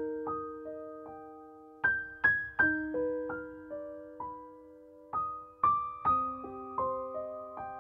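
Background music: slow, gentle piano playing single notes and soft chords that ring on and fade.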